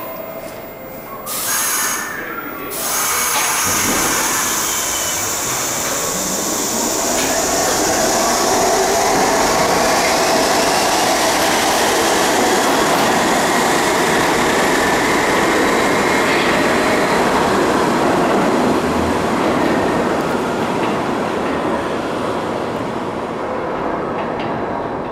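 R68 subway train pulling out of the station: a few seconds in, its motors and wheels build up as it gathers speed, run loud through the middle, then slowly ease off as the train goes away down the tunnel.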